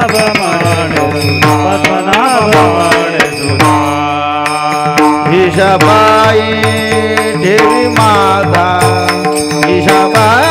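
Varkari kirtan music: a voice singing long, gliding held notes over a steady drone, with small brass hand cymbals (taal) clashing in a steady rhythm.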